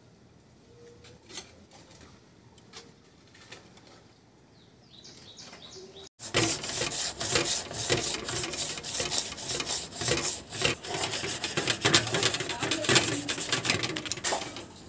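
Sandpaper scrubbed hard and fast over the rusty metal case of an old wind-up clock. The dense scratching starts abruptly about six seconds in and carries on as the tarnish is sanded off to bare, shiny metal.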